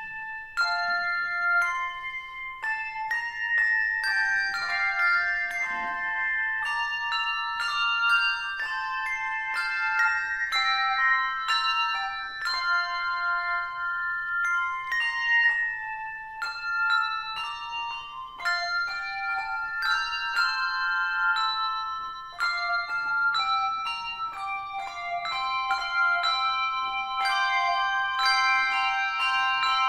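Four-ringer handbell ensemble playing a piece: a steady succession of struck bell notes, often several at once in chords, each ringing on under the next.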